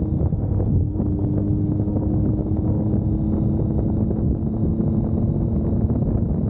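A vehicle engine running at a steady speed under heavy wind noise on the microphone.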